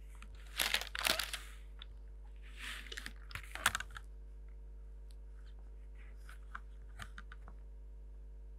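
Graphite pencil scratching across drawing paper as construction lines are darkened along a scale, in two short spells of quick strokes, then a few faint ticks of the pencil and ruler.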